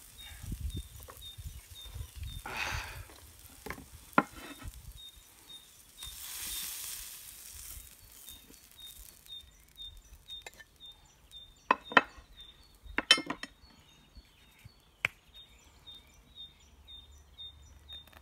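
Steak sizzling faintly on the hot steel of an old military folding spade over embers, with soft handling noise. A few sharp metallic clinks of cutlery against a plate come in the middle, a couple of them ringing briefly.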